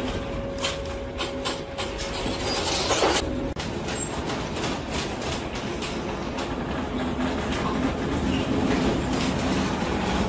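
Steady rumbling noise of wind and heavy seas against a ship working in a storm, broken by many sharp knocks and rattles. A steady hum cuts off suddenly about three and a half seconds in.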